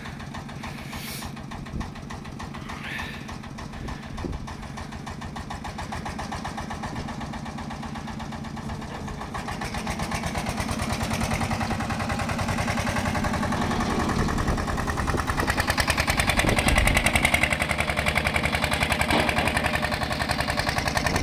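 Petter PH1 single-cylinder diesel engine of a 1965 Muir-Hill Winget 2S dumper running with a rapid, even firing beat. It grows louder from about halfway through as the dumper pulls away, and is loudest a few seconds before the end.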